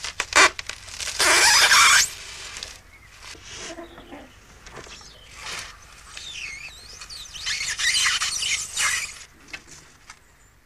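Expanded polystyrene squeaking and scraping as a giant metal needle and rope thread are forced through two sheets. The two loudest bursts come about a second in and again near eight seconds, with shorter squeals between.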